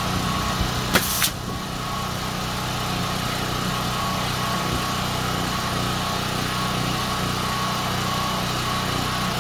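Pneumatic nail gun firing once about a second in: a sharp bang followed by a brief hiss of air. A steady machine hum runs underneath.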